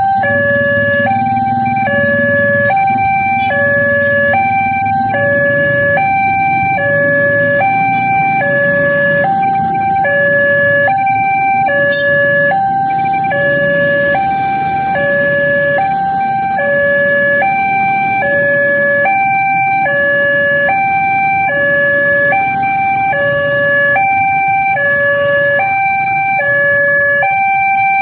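Electronic railway level-crossing warning alarm sounding a steady two-tone hi-lo signal, switching pitch about every three-quarters of a second while the barrier is down for an approaching train. Waiting motorcycle and car engines idle underneath.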